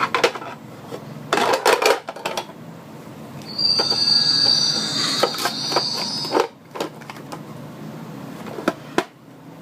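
Plastic toy doctor-kit pieces clattering and clicking as they are packed into a bag. From about three and a half seconds in, a steady high-pitched squeal lasts about three seconds, then a sharp click near the end.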